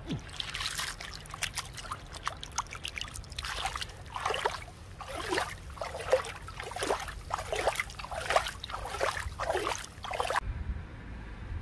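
Hands swishing and splashing in shallow stream water as a handful of marsh snails is let go, a run of quick trickling splashes about two a second that stops abruptly shortly before the end.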